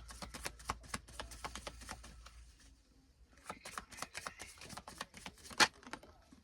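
A deck of cards being shuffled by hand: a rapid run of flicking clicks, a short pause, then a second run that ends in one sharper snap.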